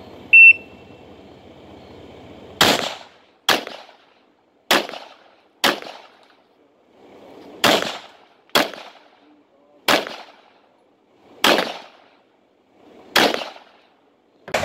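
A shot timer's short high beep just after the start, then a string of about ten pistol shots over the next twelve seconds, spaced roughly a second apart with a few longer pauses between them.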